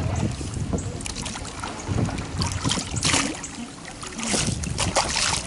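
Kayak paddle blades dipping and splashing in the water as a double-bladed paddle is stroked, with two louder splashes in the second half.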